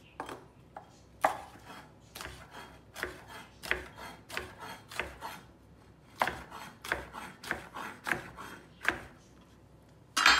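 Chef's knife chopping cucumber into cubes on a bamboo cutting board: a run of sharp knocks of the blade striking the wood, two or three a second, with a short pause about halfway through.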